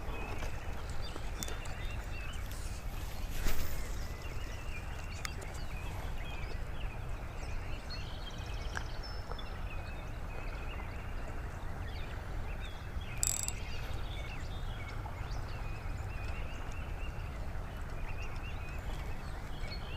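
Pond-side ambience: a steady low wind rumble on the microphone with scattered bird chirps, and a short knock about three and a half seconds in.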